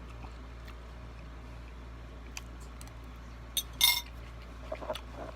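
Eating utensil clinking and scraping against a bowl, one brighter clink about four seconds in and a few faint taps, over a steady low hum.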